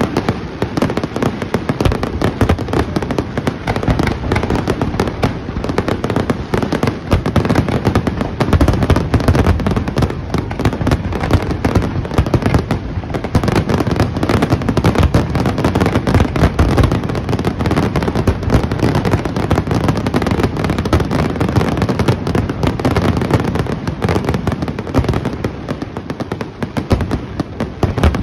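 Fireworks finale barrage: aerial shells bursting in rapid, overlapping succession, a dense and near-continuous run of loud booms with no let-up.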